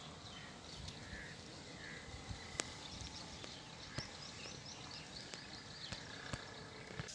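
Faint outdoor ambience with scattered small bird chirps and a few sharp, isolated clicks.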